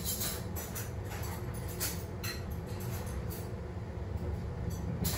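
Steady low rumble of background noise, with a few faint light clicks scattered through it.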